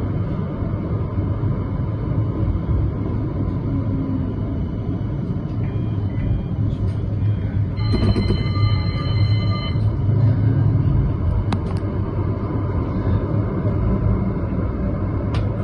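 CAF Urbos 100 tram running on street track, heard from inside the car as a steady low rumble. A steady pitched tone sounds for about two seconds around eight seconds in.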